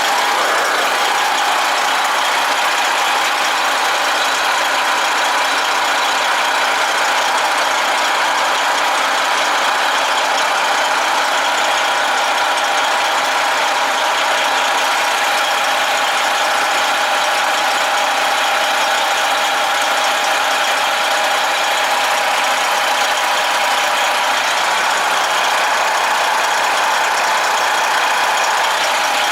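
Freightliner Cascadia semi truck's diesel engine idling steadily.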